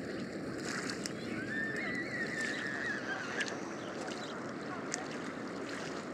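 Steady wash of lake water around a swimming Jack Russell terrier, with one drawn-out, wavering high-pitched cry lasting about two seconds, starting a little over a second in.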